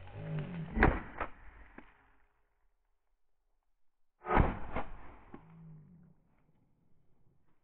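Shotgun firing: two loud reports close together about a second in, then two more about four seconds in.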